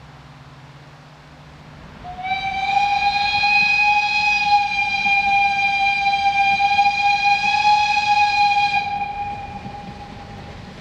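Narrow-gauge steam locomotive's whistle blown in one long blast of about seven seconds: a single steady high tone that slides up briefly at the start, then fades out. It is a warning sounded as the train nears a level crossing.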